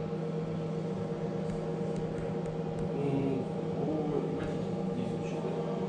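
Steady electric hum of a common-rail injector test bench, holding one even pitch without change.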